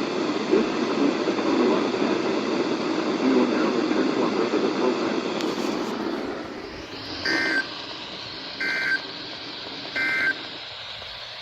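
Weather radio receiver on a weak, distant signal: noisy static for about the first six seconds, then a quieter hiss. Over the hiss come three short warbling two-tone bursts about a second and a half apart: the SAME digital data of a NOAA Weather Radio test.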